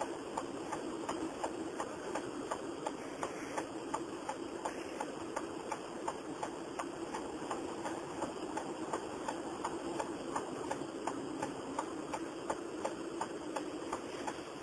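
Car turn-signal indicator clicking steadily, about three clicks a second, over the steady low hum of the car's cabin.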